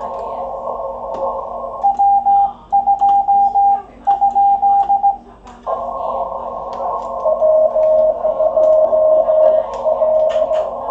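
Morse code (CW) on a ham radio transceiver's 30 m band. The receiver's narrow-filtered hiss cuts out about two seconds in while the operator sends a short burst of higher-pitched sidetone on his key; the hiss comes back, and from about seven seconds a lower-pitched Morse signal from the other station comes through it.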